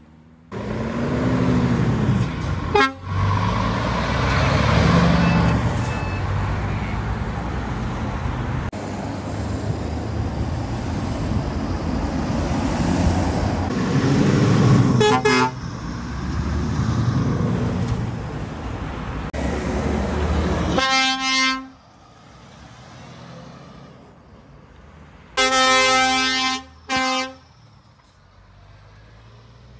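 Heavy truck diesel engines pulling away and revving up, with the pitch rising and falling twice. After that a short toot on a truck horn and, near the end, two long air horn blasts.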